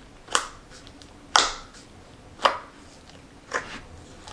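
Four sharp clicks or taps, evenly spaced about a second apart, each dying away quickly.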